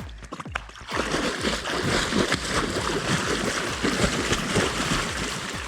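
Water splashing and sloshing in a small pool as a person gets in and swims, a dense irregular splashing that starts about a second in.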